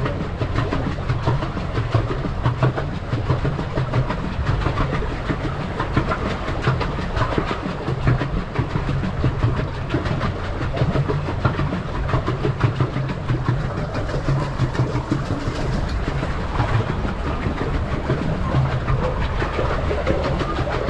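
Pedal boat under way: its paddle wheel churning and splashing the water in a steady run, with many small clicks and knocks from the mechanism.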